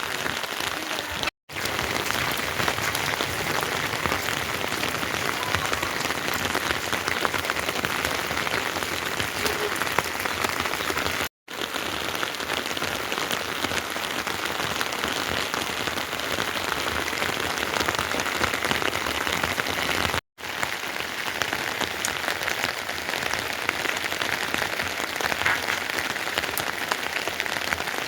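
Heavy rain falling steadily, a dense crackling patter. It drops out three times for a split second, about a second in, near the middle, and about two-thirds through.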